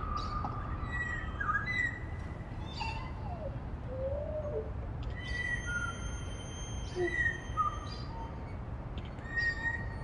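African grey parrot giving scattered short whistles and chirps, some gliding up or down in pitch. About halfway through, a steady high tone holds for about three seconds, over a constant low background rumble.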